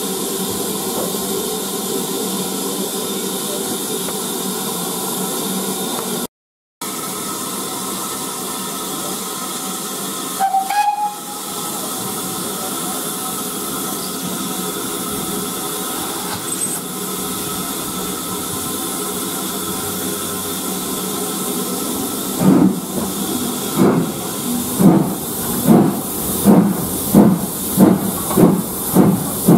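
Steam locomotive standing with a steady hiss of steam, then pulling away: its exhaust chuffs begin slowly about three quarters of the way through and quicken to about two a second.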